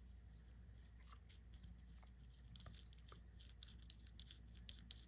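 Faint small clicks and light scrapes of a nut being unscrewed by hand from the threaded body of a small aftermarket dash switch.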